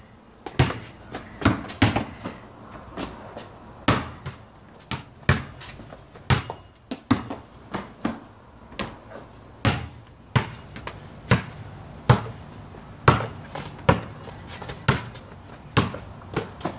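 Basketball dribbled on a painted concrete court: sharp, repeated bounces at about one to two a second, the spacing uneven as the player moves.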